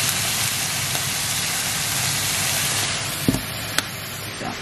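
Diced onions and red peppers frying in a pan with a steady sizzle, which eases about three seconds in. A knock and a couple of sharp clicks follow near the end.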